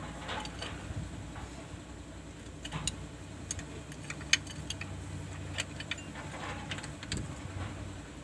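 Scattered sharp metal clinks and taps of hand tools at work on a diesel engine, the loudest about four seconds in, over a steady low hum.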